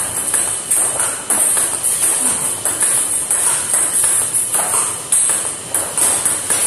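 Background music with a steady, jingling, tambourine-like beat.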